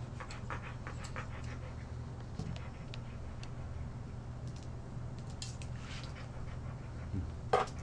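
An Airedale terrier panting softly while a grooming comb scratches lightly through its coat, over a steady low hum. A brief louder click comes near the end.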